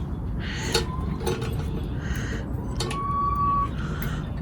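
A few light metallic clicks and clinks from small carburetor parts being handled as a thin linkage wire is refitted to a lawn mower carburetor, over a steady low background rumble. A short steady whistle-like tone sounds a few seconds in.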